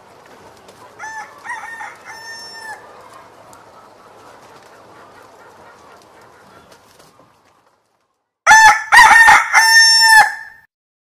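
A rooster crowing: a fainter crow over a soft hiss about a second in, then a loud close crow near the end that opens with a few short choppy notes and finishes on a long held note.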